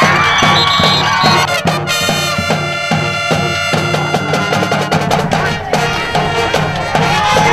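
Music with a steady, even beat, with sustained pitched notes coming in about two seconds in.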